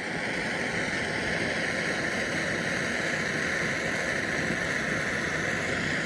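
A torch burning with a steady hiss as it heats a seized exhaust bolt to free it.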